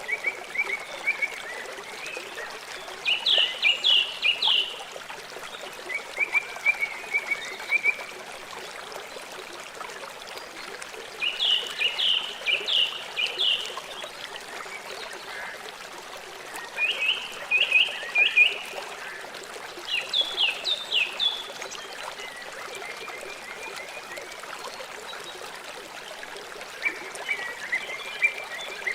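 Steady rushing of river water, with high chirping calls in short series of quick, falling notes repeating every few seconds.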